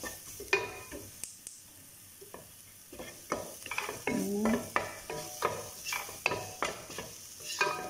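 Wooden spoon stirring and scraping sliced onions and spice powder frying in oil in a nonstick pot, over a light sizzle. The strokes ease off for a moment about two seconds in, then carry on at about three a second.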